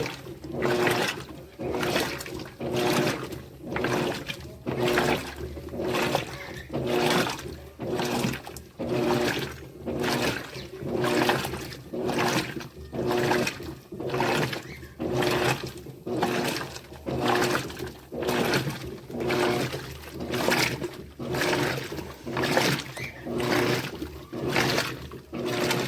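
Electrolux LTD13 top-loading washing machine agitating: water sloshing in regular strokes about once a second, with the motor's hum rising in each stroke.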